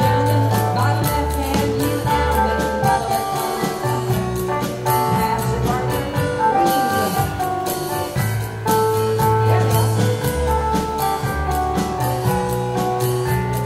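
Live contra dance band playing a dance tune: a melody over a bass line with a steady, even beat.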